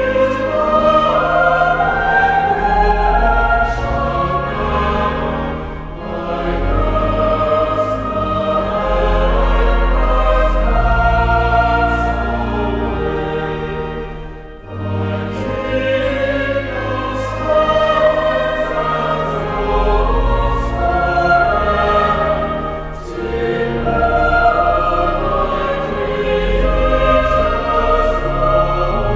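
Music: a choir singing sustained phrases over low held accompaniment, with a brief pause about halfway through.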